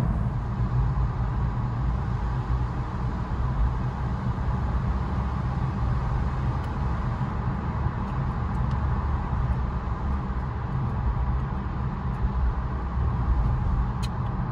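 Steady low rumble of a car's road and engine noise heard from inside the cabin while driving through a rock tunnel, with a brief click near the end.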